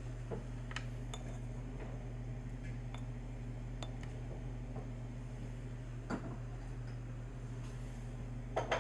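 Steady low room hum, with a few faint clinks of dishes and cutlery on a table, the loudest near the end.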